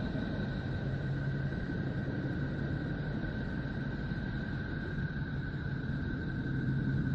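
Data sonification of Neptune's electromagnetic emissions: a steady, hissing rumble with two steady high tones and a low hum that comes and goes.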